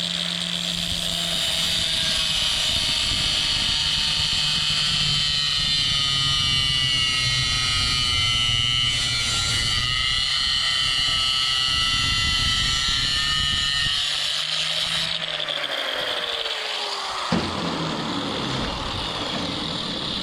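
Power tool with an abrasive cut-off disc cutting through a length of steel: a steady, high-pitched grinding with the motor humming under it. About 15 seconds in, the motor's pitch falls as it slows, and then the cutting noise carries on.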